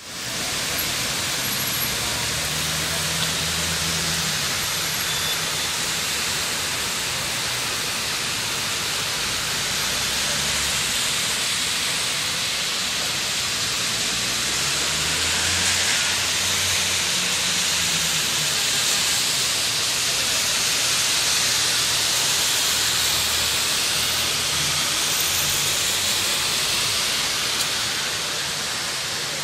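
Heavy rain falling steadily, a constant loud hiss, with the low hum of cars passing on the wet street a few times.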